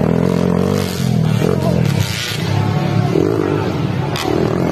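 Racing motorcycle engines running on a dirt track, their pitch rising and falling as the riders work the throttle.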